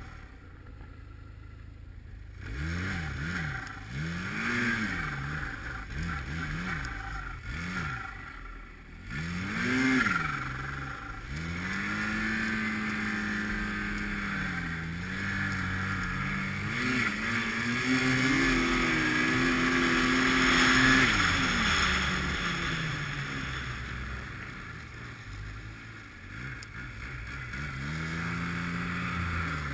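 240-horsepower Arctic Cat snowmobile engine revving in a series of short throttle bursts, then held at a steady high speed for about ten seconds while the sled runs through powder. It eases off, then picks up again near the end.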